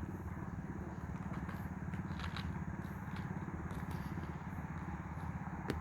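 Steady low rumble of an idling engine, with a couple of sharp clicks near the end.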